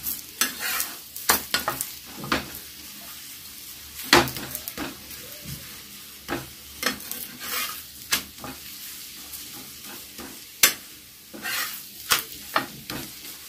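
Thepla shallow-frying in oil on a flat tawa, sizzling steadily, with repeated short scrapes and knocks of a flat metal spatula pressing it against the griddle. Near the end the spatula scrapes under the bread to lift it off.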